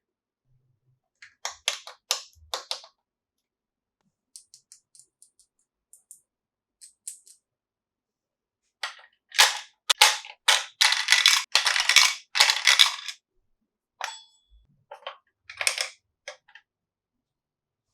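Small plastic toy pieces and their packaging being handled: sharp plastic clicks and snaps in short clusters, with a dense run of loud crackling about halfway through.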